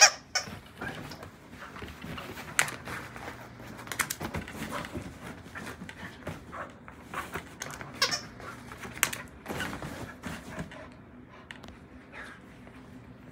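A dog playing with a plush toy on a bed: short vocal noises scattered through the play, amid rustling of the bedding and soft knocks. The activity thins out in the last couple of seconds.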